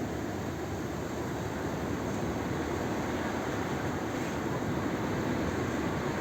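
Strong wind blowing in a snowstorm, a steady rushing noise that holds evenly throughout.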